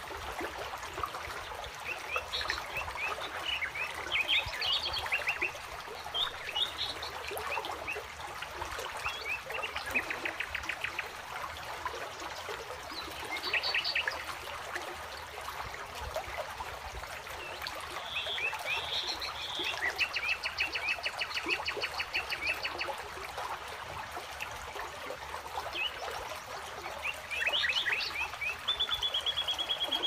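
Small rocky forest stream babbling over low cascades, with birds chirping and calling throughout. Several fast pulsed trills come through, the longest in the second half, and a short held whistle sounds near the end.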